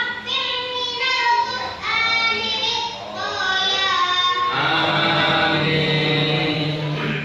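A young boy chanting Qur'an recitation in long, melodic held notes, amplified through a microphone. For the last few seconds a deeper voice holds one long note.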